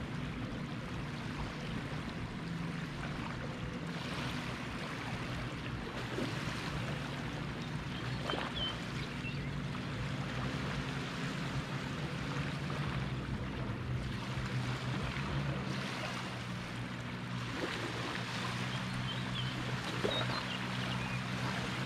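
Small lake waves lapping and washing on a sandy shore, over a steady low hum, with a few faint bird chirps about a third of the way in and near the end.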